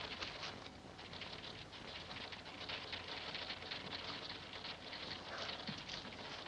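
Soft, dense crackling patter of many tiny irregular clicks over a low steady hum.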